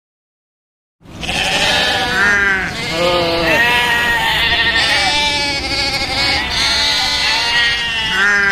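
A flock of goats bleating, many calls overlapping, starting about a second in after a moment of silence.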